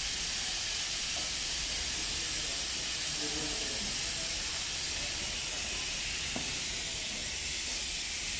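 A steady, high hiss that holds at an even level throughout.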